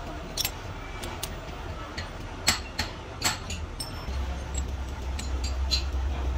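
Steel hydraulic-breaker parts clinking and tapping against each other as they are handled, a scattering of sharp metallic clicks. Under them a steady low rumble that gets louder about four seconds in.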